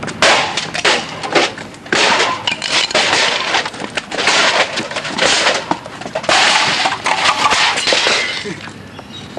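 Loud crunching and crashing in a series of sharp bursts, about one a second, as something is broken up, dying away near the end.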